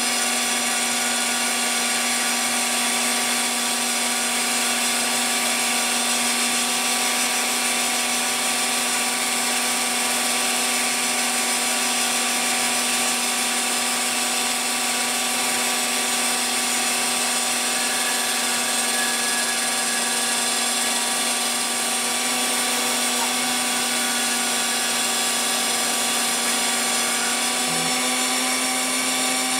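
Phlatprinter CNC mill's spindle cutting a fibreglass sheet, running as a steady whine made of several even tones over a hiss of cutting noise, without a break.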